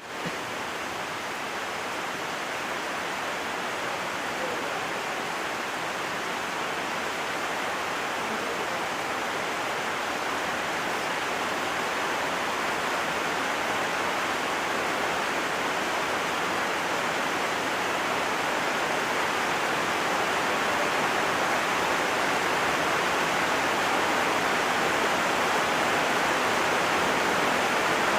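Heavy rain falling as a steady, even hiss that slowly grows a little louder.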